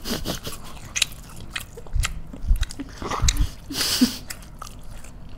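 Close-miked biting and chewing of fried Indonesian market snacks such as sesame-coated onde-onde, with scattered crisp clicks, a few low thumps about two seconds in, and a louder crunch about four seconds in.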